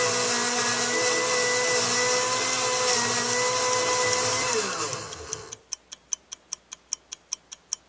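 Electric blender running at a steady pitch, then spinning down about five seconds in. A countdown timer's quick ticking follows, about four ticks a second.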